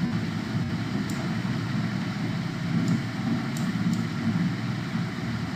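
Steady low background rumble with no pitch to it, joined by a few faint light ticks about one, three and four seconds in.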